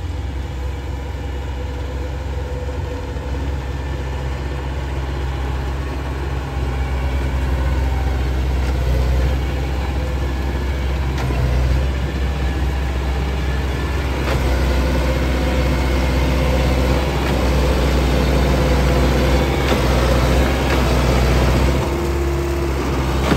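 Kubota DC-105X combine harvester's diesel engine and machinery running steadily while cutting rice, growing gradually louder.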